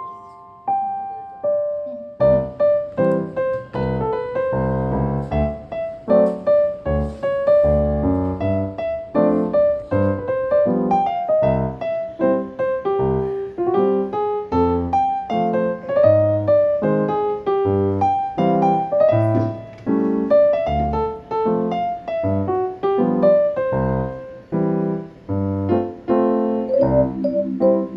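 Background music: a mellow piano tune, with low bass notes joining about two seconds in.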